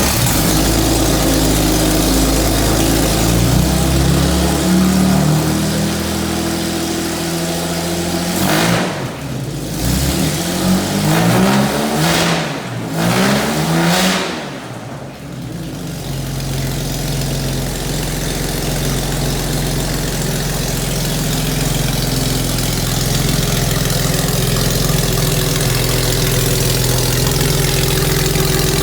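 Freshly rebuilt 1957 Jaguar XK140 twin-cam straight-six running on an engine run-in stand just after a cold start. In the middle it is revved up and down several times, then it settles into a steady idle.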